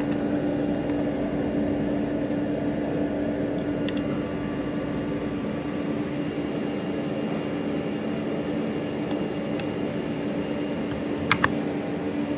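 Steady mechanical hum with a constant low tone from a running machine. Two sharp clicks come close together near the end.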